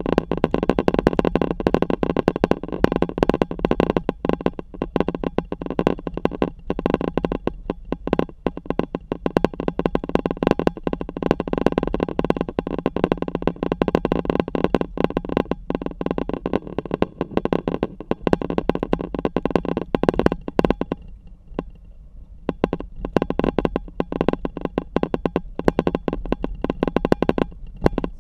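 Constant crackling buffeting and rumble from a hood-mounted camera on a Hummer H3 driving a wet gravel road: wind and road vibration on the camera's microphone. The crackle drops away for a few seconds about three quarters of the way in, then returns.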